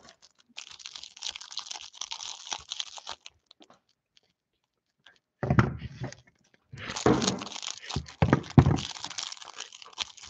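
Cellophane wrapper on a stack of trading cards crinkling and tearing as it is handled and cut open. It crinkles for about three seconds, goes quiet for about two, then returns louder near the middle, mixed with dull knocks from the handling.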